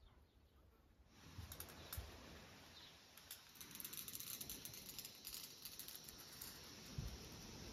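Faint outdoor ambience of insects: a soft hiss full of fast, high clicking that comes in about a second in, with a couple of low bumps.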